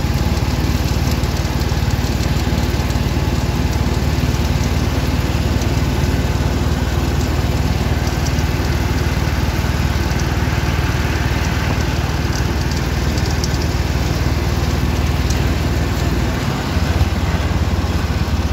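Engine of a tempo (three-wheeled auto-rickshaw) running steadily as it drives, with a shift in its low engine note near the end.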